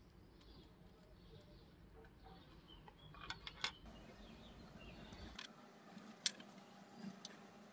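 Faint, scattered clicks and ticks of small metal tools and parts on a 3D-printed plastic hub: a thin steel rod and tweezers working at nuts. A sharper click comes about six seconds in, over a steady low rumble that stops about five seconds in.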